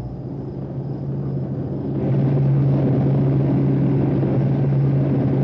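Rocket engine sound effect of a descending rocket: a steady rumble with a low hum, getting louder about two seconds in.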